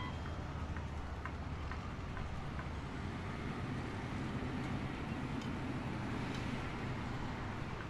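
A steady low rumble of background ambience, like distant traffic or engines, with a few faint ticks.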